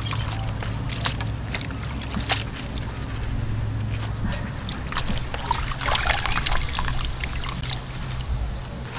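Water splashing and dribbling as leafy vegetables are rinsed in a metal basin and lifted out, with scattered small clicks and a busier spell of splashing about six seconds in. A steady low hum runs underneath.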